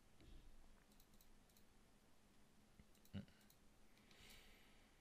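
Near silence with faint, scattered computer mouse and keyboard clicks, and one louder click about three seconds in.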